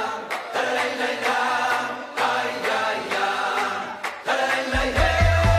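Closing music: voices singing a chant-like melody over a steady beat of about two a second, with deep bass coming in near the end.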